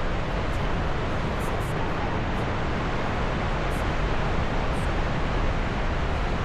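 Steady, even rushing noise, like wind or torrent water, with no distinct rockfall impacts or engine.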